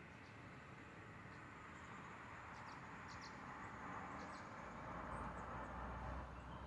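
Faint outdoor ambience: a soft rushing noise that swells over the last few seconds, with a low rumble near the end and a few faint high ticks.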